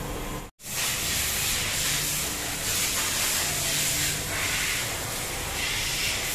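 A steady hiss with a low hum beneath it, after a brief dropout to silence about half a second in.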